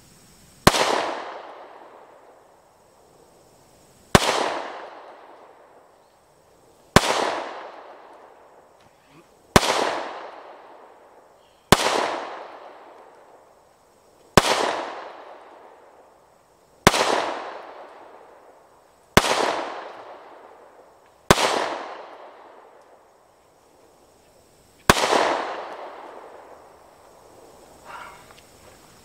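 Ten 9mm pistol shots from a SIG Sauer P365, fired slowly one at a time, about two to three and a half seconds apart, each followed by a fading echo.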